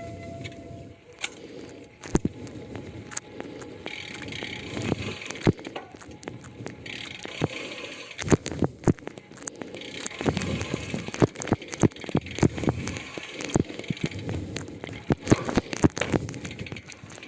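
Bicycle wheel noise after braking on Vision SC 40 disc-brake wheels: many irregular sharp clicks and ticks over a hissing rub that comes and goes. The owner traces the noise to these wheels rather than to the brake calipers or rotors.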